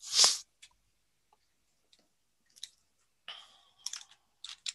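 A short breathy hiss, then scattered faint clicks and brief rustles.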